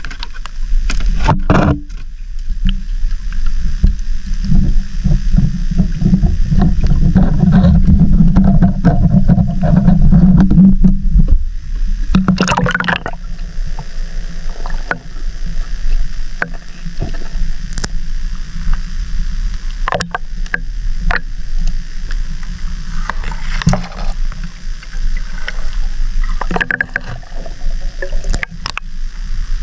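Sea water sloshing and rushing, heard muffled from underwater, loud for the first eleven seconds or so and then quieter, with scattered sharp clicks and knocks.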